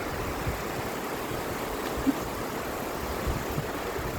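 Rail bike rolling along the track: a steady low rumble with gusts of wind buffeting the microphone, and one short knock about two seconds in.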